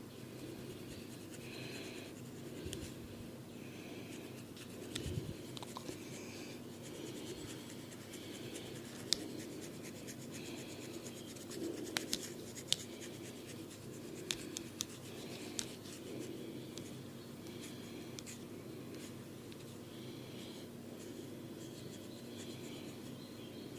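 Scratching strokes through hair against the scalp, repeating every second or two, over a steady low hum. A few sharp clicks come near the middle.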